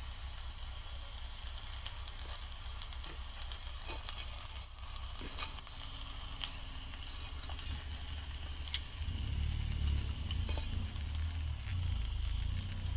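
Steady hiss and crackle of metal being melted in a clay crucible under borax flux, with scattered light clicks of metal tongs against the crucible. A low rumble grows louder about nine seconds in.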